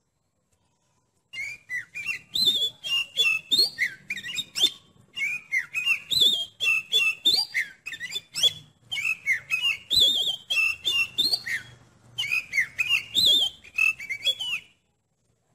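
Oriental magpie-robin (kacer) singing a loud, varied song of whistled, gliding phrases mixed with sharp clicking notes. It starts about a second in, comes in three or four runs with short breaks, and stops shortly before the end.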